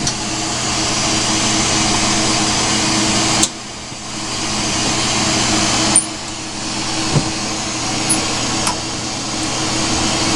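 Glassblowing torch flame hissing steadily, with a faint low hum underneath. The hiss drops sharply about three and a half seconds in and swells back, and there is a click about six seconds in.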